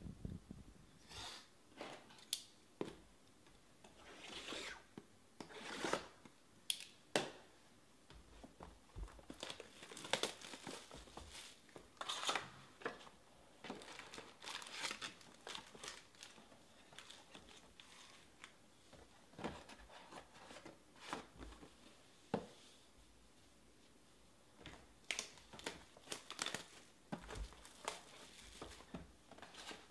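Shrink-wrap and cardboard of Panini Prizm baseball hobby boxes being torn open and handled, with crinkling of foil card packs: irregular rips, rustles and sharp taps, with a short lull about three-quarters of the way through.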